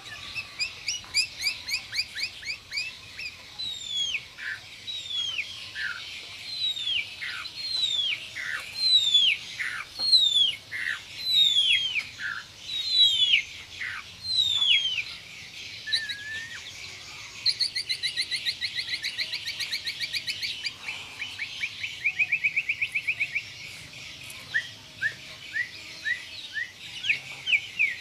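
White-rumped shama (murai batu) singing loudly. It starts with quick short notes, then gives a long run of sharp whistles that slide down in pitch, about one a second. Past the middle come two fast, tight rattling trills, a few seconds apart, and short clipped notes return near the end.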